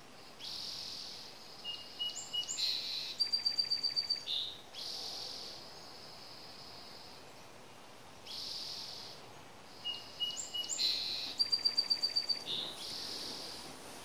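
A bird singing the same song phrase twice, about eight seconds apart. Each phrase has high buzzy notes, a short steady whistle and a fast, even trill.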